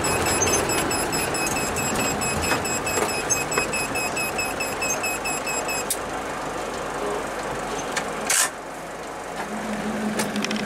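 Steady road and engine noise heard from inside a moving vehicle in traffic. There is a short rush of noise near the end, after which it runs quieter.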